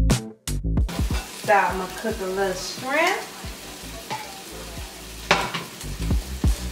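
Food sizzling in a frying pan on the stove, a steady hiss with scattered small clicks of utensils. A few short pitched sounds rise in pitch around the middle, and a sharp knock comes about five seconds in.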